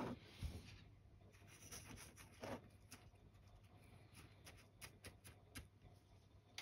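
Faint scratching and small clicks of a miniature's plastic base being pressed and rubbed into a tub of static grass and gravel. There are a couple of short scratches early, then a quick run of light clicks about four to five and a half seconds in.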